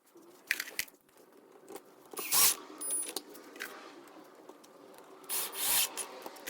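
Workshop handling noises: scattered small clicks and knocks, with two short loud scraping or rushing bursts, one about two seconds in and one near the end.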